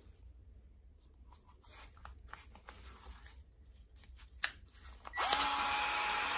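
Milwaukee PEX expansion tool test-run after a stuck fitting was cut off its head: a few handling clicks, then about five seconds in the motor starts and runs steadily with a whine, showing the tool still works.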